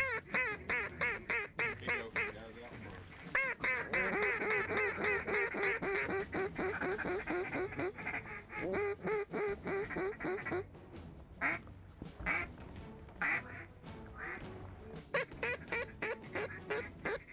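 Duck calls blown by hunters: long runs of rapid, repeated quacking chatter, densest from about three to ten seconds in, then shorter, separate quacks.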